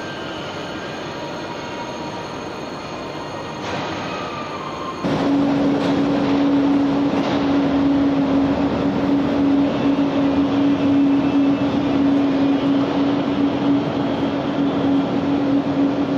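Station platform noise beside a TGV Atlantique, then about five seconds in a louder steady electric hum from the train with one strong constant tone. The hum cuts off abruptly near the end.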